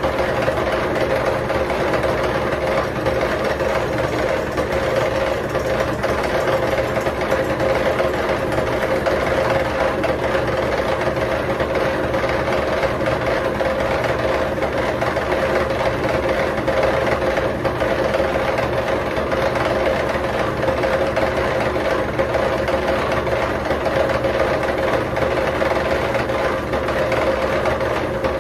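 Milling machine running steadily as its cutter face-mills the flat face of a cast iron exhaust manifold, a constant mechanical hum with a strong steady tone.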